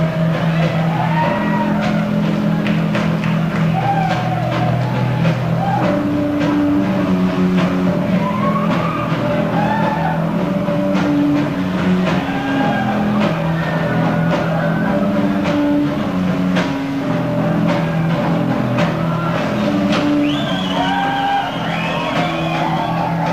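Live rock band playing loud, with distorted electric guitars and drums in a large hall.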